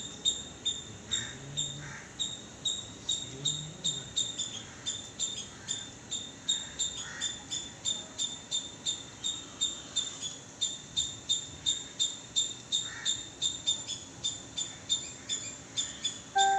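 Insects chirping: a steady, high-pitched chirp repeated evenly a few times a second.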